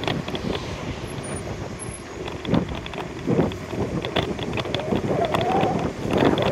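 Wind buffeting the microphone of a camera on a moving bicycle, a steady low rumble with scattered sharp clicks and knocks from the ride.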